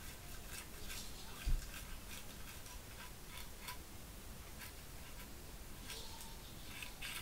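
Paintbrush working paint onto a plastic Leman Russ tank model: faint, irregular scratchy ticks of the bristles, about three a second. A single low knock about one and a half seconds in.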